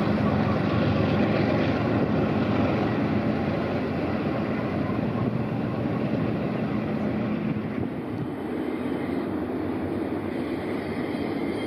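Long intermodal freight train rolling past: a steady rumble of steel wheels on the rails.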